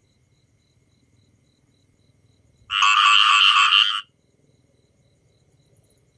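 A frog giving one loud, rapidly pulsed call lasting a little over a second, about halfway through, over faint, regular chirping.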